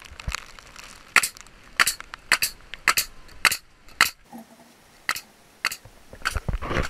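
Hitachi nail gun firing nails into wooden trim: a string of sharp shots, roughly one every half second.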